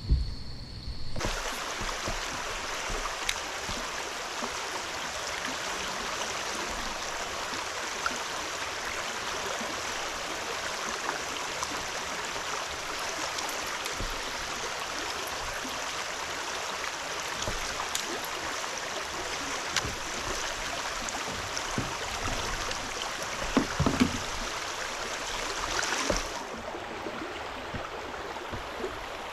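Steady rush of flowing creek water, which starts abruptly about a second in and cuts off near the end. A couple of low knocks come late on.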